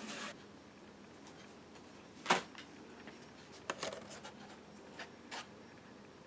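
Faint handling sounds of unboxing: a brief rustle at the start, then a few scattered clicks and taps of hard plastic items being picked up and set down, the sharpest about two seconds in.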